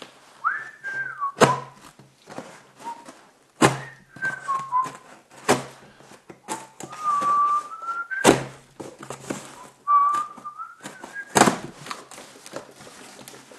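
A man whistling a wandering tune while cutting open a taped cardboard box with a knife. Five sharp thunks, spaced about two seconds apart, are the loudest sounds, from the blade and the box.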